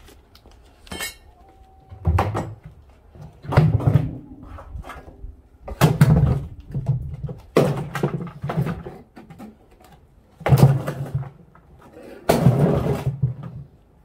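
Heavy thuds and bangs on a stainless-steel washing-machine drum as it is worked loose for scrap: about seven irregularly spaced blows, each with a short ring after it, the last near the end the longest.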